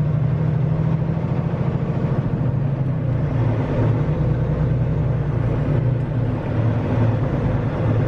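Semi-truck diesel engine running steadily at low speed, heard from inside the cab as a low, even drone.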